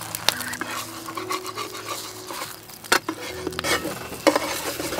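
Egg and wasp larvae frying in a pan, a light sizzle, with a few sharp clicks and scrapes of a metal spatula against the pan.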